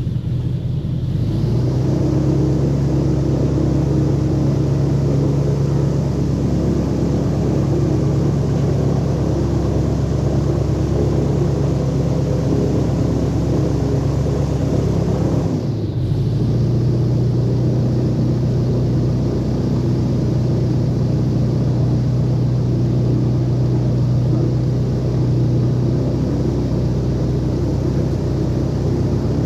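Airboat engine and propeller running steadily at low speed, a constant low hum with a brief dip about halfway through.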